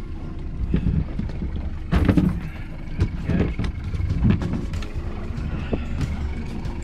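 Steady low rumble on a fishing boat at sea, with scattered knocks and clatter from gear and the catch being handled on the aluminium deck.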